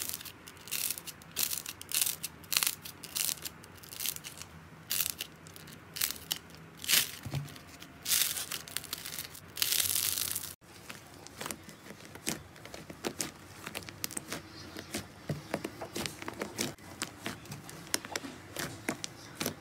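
Hands squeezing and pulling thick slime, making irregular sticky crackles and tearing sounds, with a longer crackling hiss just before halfway. After a sudden cut, hands press into a slab of blue slime in a tub, making a denser run of small pops and clicks.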